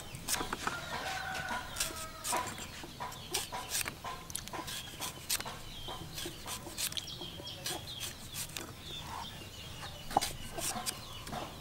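Chickens clucking, with one drawn-out call about half a second to two seconds in.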